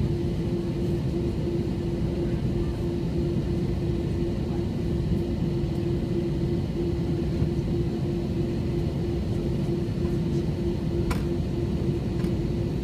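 Steady jet-engine rumble inside an Airbus A321 cabin, with a constant low hum running through it.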